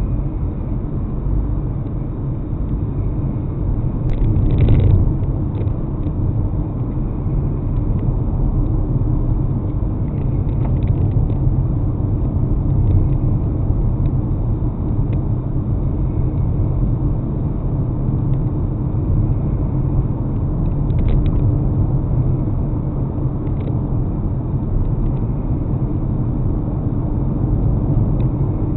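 Steady low rumble of a car driving on city roads, with tyre and engine noise heard from inside the vehicle. A brief louder noise comes about five seconds in.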